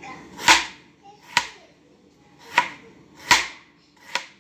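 A series of sharp knocks or claps, five in about four seconds, the first and fourth the loudest.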